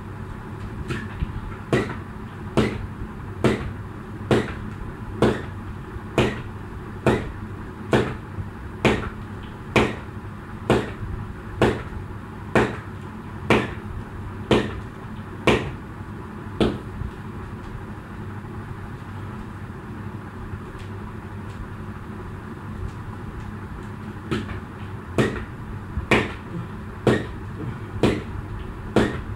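Jump rope slapping the floor on each turn, sharp clicks about once a second that stop for several seconds midway and then start again, over a steady low hum.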